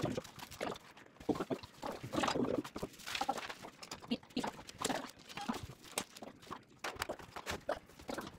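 Irregular knocks, taps and clatter of a metal-framed console table being handled during assembly.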